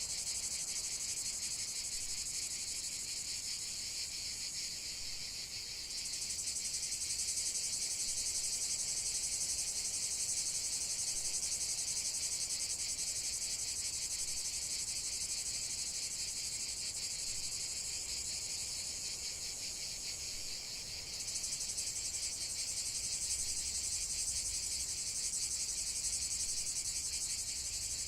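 Crickets chirping in a steady high-pitched chorus, swelling slightly about six seconds in and again about 21 seconds in.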